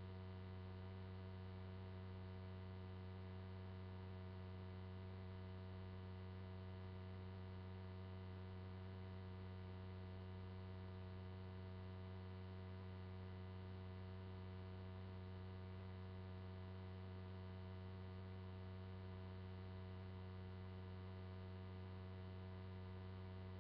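Steady electrical mains hum on the audio feed: a low, unchanging buzz with many evenly spaced overtones and no other sound.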